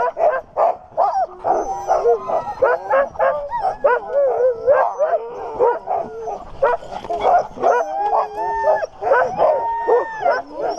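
A pack of sled dogs barking, yipping and howling all at once, many voices overlapping without a break: the excited din of a team being harnessed for a run.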